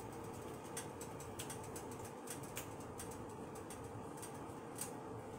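Breadcrumbs crunching and crackling in a glass bowl as a potato ball is rolled and pressed into them by hand: faint, irregular small clicks over a low steady hum.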